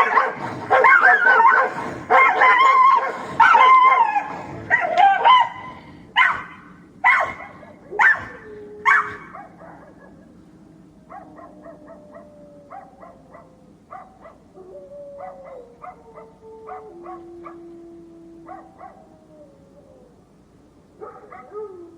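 Angry dogs barking and snarling, dense and rapid at first, then single barks about once a second. From about ten seconds in the barking turns quieter: short yips over a long whine that falls in pitch in steps.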